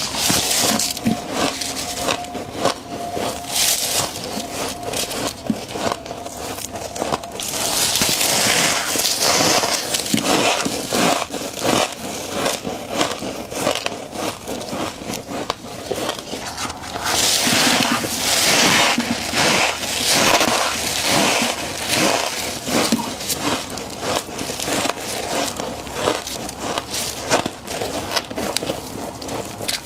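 Close-up crunching and chewing of frost, a dense crackling with scraping, growing louder about eight seconds in and again from about seventeen seconds.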